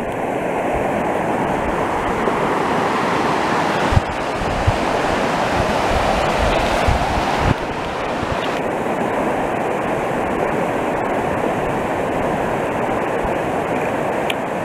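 Rushing mountain creek, whitewater tumbling over rocks in a steady, loud rush. A few brief knocks come through about four and seven seconds in.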